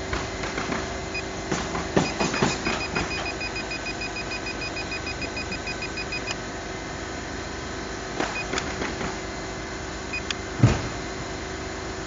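Steady hum of a small quadcopter drone's propellers. A quick run of evenly spaced beeps, about six a second, starts about two seconds in and stops about six seconds in. Scattered clicks and knocks come through, with one louder thump near the end.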